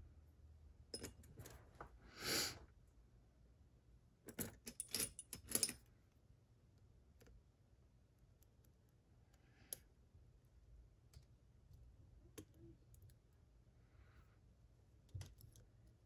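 Faint metal clinks and clicks of lock-picking tools on a Mottura Viper cylinder lock. A short rattle comes about two seconds in and a cluster of sharp clinks between about four and six seconds, then sparse light ticks as a pick works the pins.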